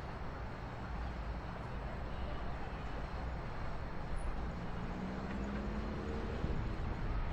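City ambience: a steady low rumble of distant traffic, with a faint engine note rising in pitch a little past the middle.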